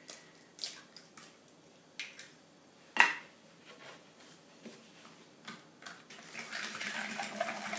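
Scattered clinks of a metal whisk against a glass mixing bowl, the sharpest about three seconds in. From about six seconds in, steady whisking as the egg is beaten into the melted butter and brown sugar.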